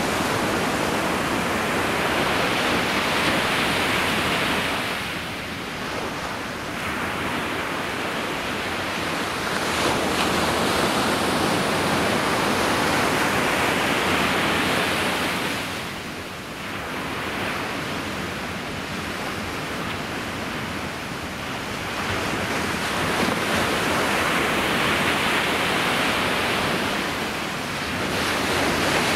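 Ocean surf breaking on the shore: a continuous rushing wash of waves that swells and eases three times as the sets roll in.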